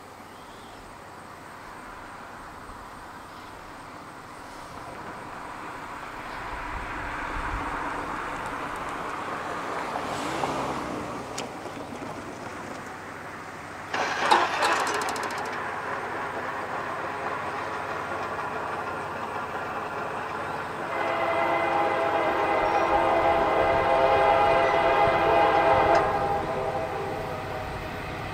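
CSX EMD GP40-2 diesel locomotive approaching with a growing rumble of engine and wheels. Its horn gives a short blast about halfway through, then a longer blast of several notes at once for about five seconds near the end.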